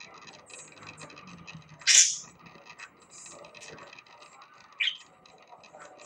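Budgerigar warbling: a continuous soft chatter of quick clicks and squeaky notes. A loud, sharp squawk about two seconds in is the loudest sound, and a shorter chirp comes near five seconds.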